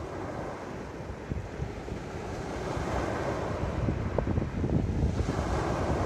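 Small sea waves breaking and washing over a pebble beach, with wind buffeting the microphone. A larger wave surges in near the end.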